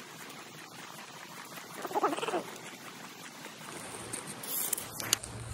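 Creek water rushing steadily, with a short wavering squeal-like cry about two seconds in and a couple of sharp clicks near the end.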